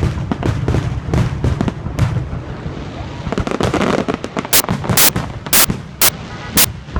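Fireworks going off in quick succession: a rapid volley of booms, then a run of loud, sharp cracks from about four and a half seconds in.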